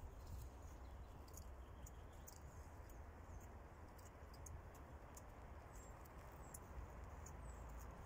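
Faint forest ambience: a low steady rumble with scattered faint high ticks, and a few thin high chirps of small birds near the end.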